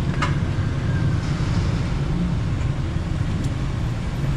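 Steady low rumble of street traffic and engines, with a few faint clicks.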